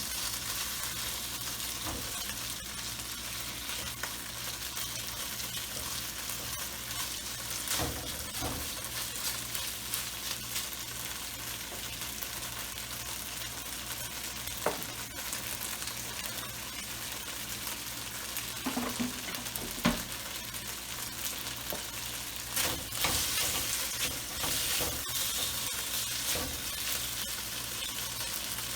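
Marinated jumbo shrimp sizzling steadily in hot oil in a wok as they are stir-fried, with a few sharp clicks scattered through.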